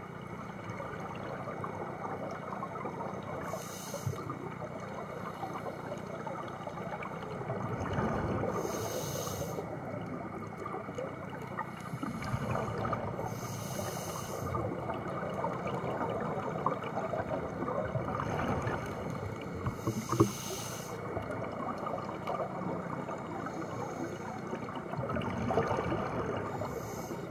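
Scuba diver breathing underwater through a regulator: a short hiss about every five seconds, with a steady bubbling wash of exhaled air in between.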